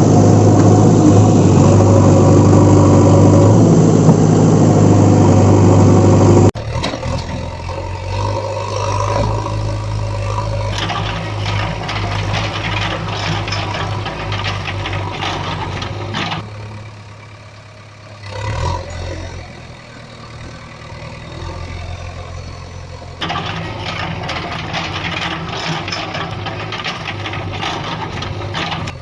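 Heavy vehicle engines running, in a series of abruptly cut clips. The first stretch, ending about six and a half seconds in, is much louder than the rest.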